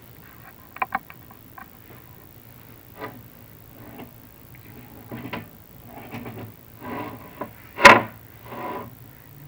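Scattered scrapes and clicks of a chimney inspection camera and its cable rubbing against the flue tiles as it is lowered down the flue, with one sharp knock near the end.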